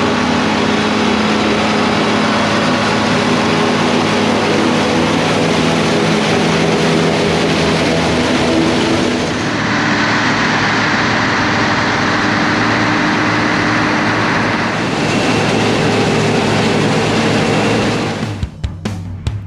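Diesel tractor engines and silage machinery running steadily at working speed. The sound shifts in character about ten seconds in and again around fifteen seconds, then breaks up near the end.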